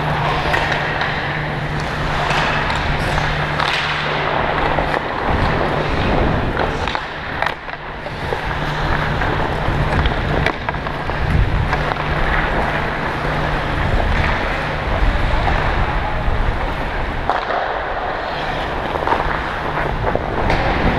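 Hockey skate blades scraping and carving the ice in strides, close up from a camera worn by the skater, with a few short sharp clicks.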